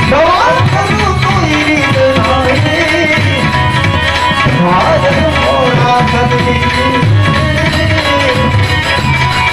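Live Gujarati bhajan music with tabla playing a steady rhythm. Over it a melody line slides and wavers, above a steady held tone.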